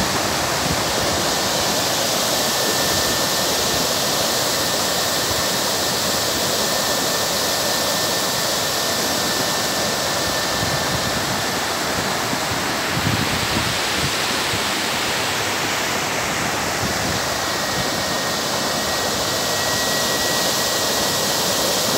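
Floodwater rushing steadily over a small reservoir dam's spillway and churning into whitewater below it. The reservoir is full after heavy rain and spilling over.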